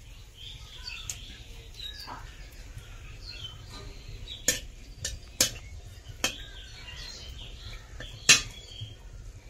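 Birds chirping, with a few sharp clicks about halfway through and one more near the end.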